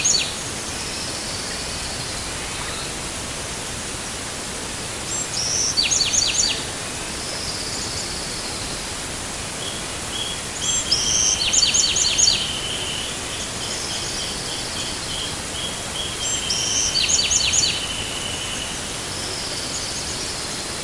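Dawn birdsong over steady background hiss. A Bewick's wren repeats its song about every five to six seconds: a short high whistle, then a quick run of sharp notes. From about ten to eighteen seconds a wrentit gives a long, even series of lower notes.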